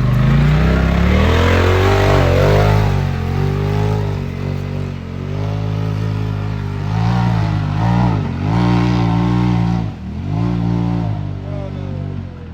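Polaris RZR side-by-side engine revving and accelerating, its pitch climbing and dropping several times as the throttle is worked, with a brief drop-off about ten seconds in.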